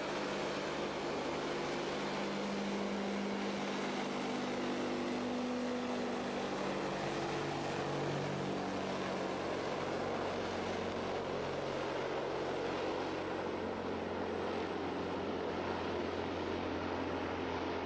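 Tupolev Tu-95 bomber's four turboprop engines, with their contra-rotating propellers, running at high power on the takeoff roll: a steady drone with several humming tones that slowly shift in pitch as the aircraft moves along the runway.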